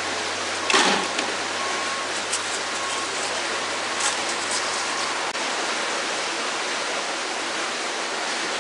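Steady rush of water spilling through the canal lock gates, echoing under the bridge. A brief louder burst comes about a second in, and a few faint clicks around four seconds in.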